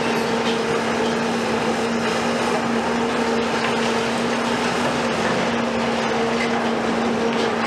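Hydraulic demolition excavators working in concrete rubble: a steady engine and hydraulic drone with a constant low hum, over continuous rough noise with faint knocks of debris.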